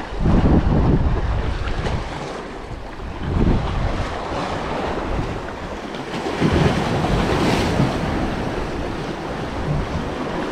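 Surf breaking on the shore, with wind buffeting the microphone in gusts that swell and ease every few seconds.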